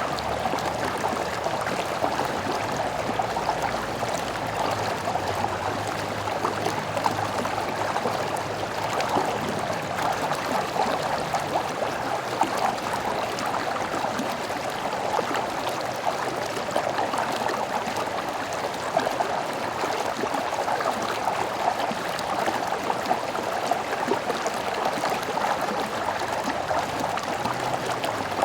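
A small stream running and babbling over stones, a steady rush of water with many small splashes and gurgles throughout.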